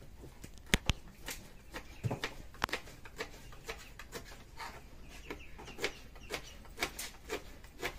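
Kitchen knife chopping garlic on a plastic cutting board: irregular sharp taps, about two a second, with two loud clicks about a second in.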